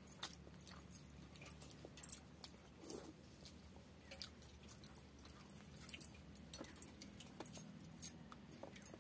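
Eating sounds of rice and fish curry eaten by hand: irregular soft wet clicks and smacks of fingers mixing rice and of chewing, with a few sharper clicks, and the light clinking of bangles on the eaters' wrists.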